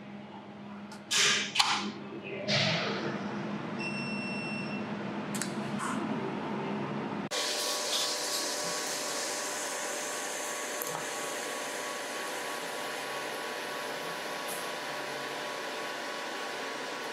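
200 W fiber laser jewelry welder being switched on: a few sharp knocks and clicks, a short electronic beep, then about seven seconds in its water-cooling system starts up with a steady whir and hum as water begins to circulate.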